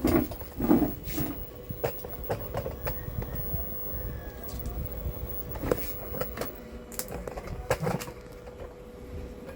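Scattered light clicks and knocks of hands working on an opened CRT TV on the bench, over a low steady rumble and a faint steady hum.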